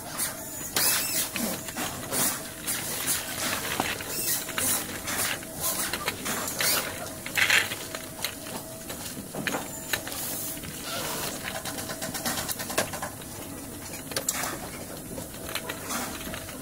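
Steel-framed folding wagon being handled and wheeled about: irregular clicks, rattles and knocks from its frame and pull handle.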